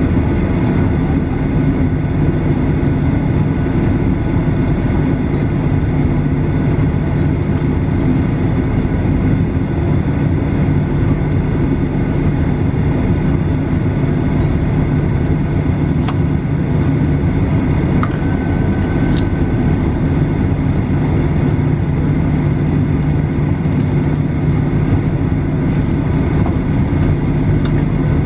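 Cabin noise inside a Boeing 737-800 taxiing after landing: the CFM56 engines running at idle, a loud steady drone with a low hum, with a few faint clicks partway through.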